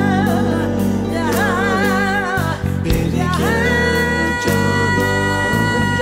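A woman sings a Turkish folk song (türkü) with vibrato over band accompaniment. About halfway through, a long steady held note takes over.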